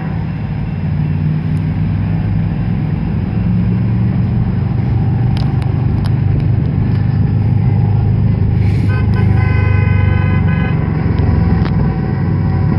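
Approaching freight train's diesel locomotives rumbling and growing louder. About nine seconds in, a multi-tone horn sounds for about two seconds, and it starts again near the end.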